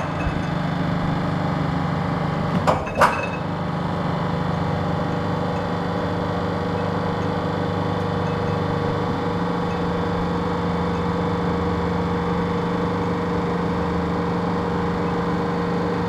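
Methods 5-ton welding positioner's tilt drive running steadily as the table tilts up, a constant mechanical hum. Two sharp metallic clinks come about three seconds in.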